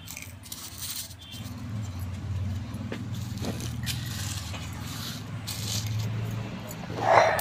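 Light scraping and rattling of dry spice seeds and dried red chillies being spread by hand on a stone grinding slab, over a low steady hum. A short, louder sound comes near the end.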